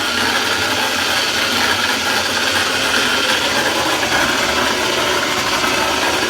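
Amana washing machine on the spin cycle making a loud, steady, horrible grinding noise. The cause is a missing nut on the shaft: the pulley has come loose and rubs, wearing a groove.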